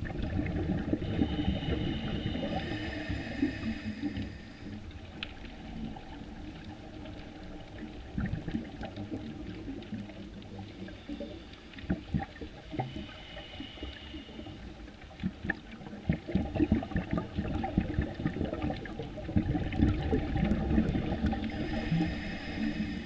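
Underwater sound picked up by the camera: a low rumbling wash of water with scattered clicks and faint high-pitched tones. It is louder in the first few seconds, drops away, then swells again over the last several seconds.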